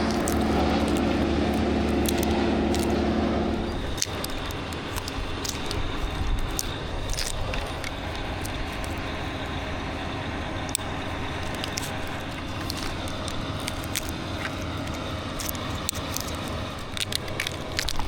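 Grove crane's engine running steadily under load as the cable is taken up, dropping back about four seconds in, with many sharp crackles and snaps of branches through the rest.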